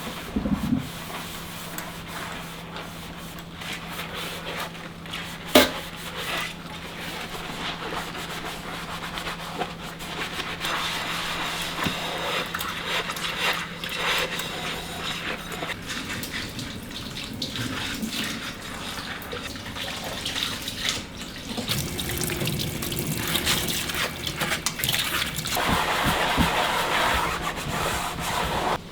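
Water running from a tap into a sink while things are rinsed, with a sharp clink about five and a half seconds in; the water gets louder in the last third. A low steady hum runs under the first half.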